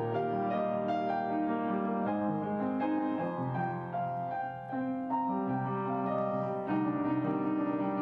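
Background piano music playing slow, held notes.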